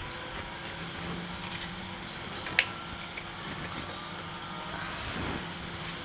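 Faint background ambience: a steady high insect trill over a low hum, with one sharp click about two and a half seconds in.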